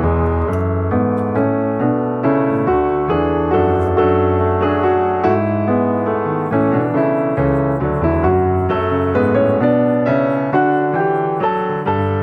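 Background piano music, steady notes and chords throughout.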